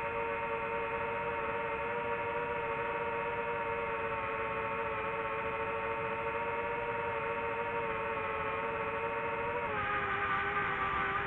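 DJI FPV drone's motors and propellers whining steadily in flight. About ten seconds in, the pitch drops and the sound gets a little louder.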